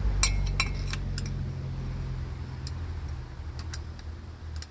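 Scattered light metallic clicks and clinks of tools and chainsaw parts being handled, several close together in the first second and a few more later. Under them runs a low steady hum that slowly fades.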